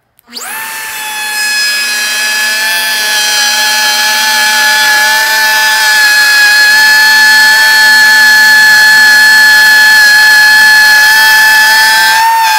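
DeWalt compact router spinning up with a quick rising whine about a quarter second in, then running at a loud, steady high-pitched whine while its bit cuts a straight channel into the tabletop, guided along a clamped jig. The pitch dips briefly near the end.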